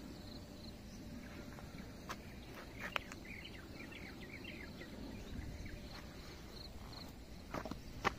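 Quiet outdoor ambience with small birds chirping: a short run of quick twittering notes from about two to four and a half seconds in, and a faint high chirp repeating a few times a second. A few sharp knocks are heard, the loudest near the end.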